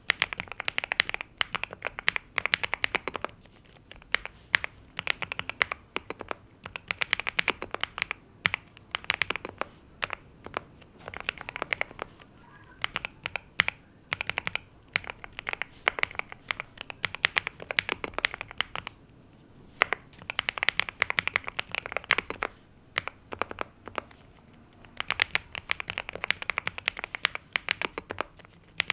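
Typing on a NuPhy Gem80 mechanical keyboard with NuPhy Mint linear switches and double-shot PBT mSA keycaps: quick runs of key clacks in bursts of a few seconds, with brief pauses between, the longest about two thirds of the way through.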